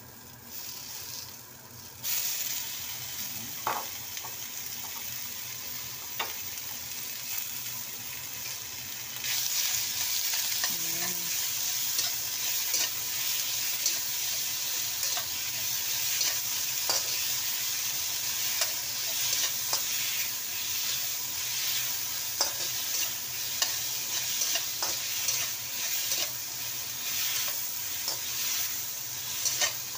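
Minced beef sizzling in hot oil in a wok with onions and garlic, stirred with a spatula that scrapes and taps against the pan. The sizzle starts about two seconds in as the beef goes in, and gets louder about nine seconds in.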